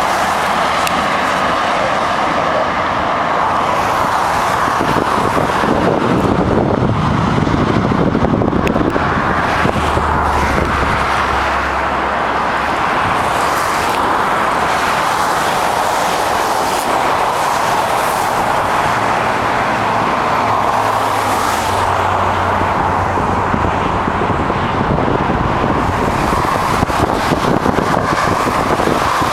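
Steady traffic noise from cars driving over the suspension bridge deck in the lanes beside the walkway, mostly tyre noise with passing vehicles swelling and fading.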